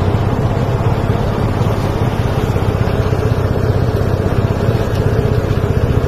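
Engine-driven rice threshing machine running steadily, with a fast, even engine pulse under a continuous hum.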